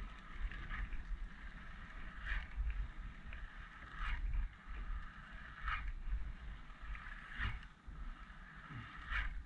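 Kayak paddle strokes on open water, a short splash about every second and three-quarters, six in all, over a steady low rumble.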